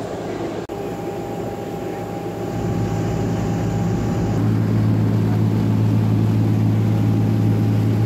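Tour boat's engine running steadily under the rush of water past the hull, a low hum that grows louder about halfway through. The sound cuts out for an instant just under a second in.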